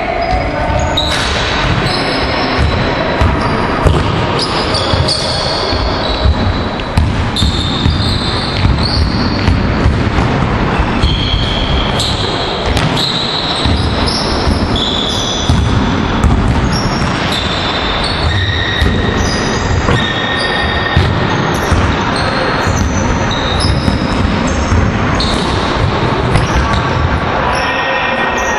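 Basketballs bouncing on a hardwood gym floor, many thuds in an irregular patter, with short high sneaker squeaks from players cutting and stopping, echoing in a large sports hall.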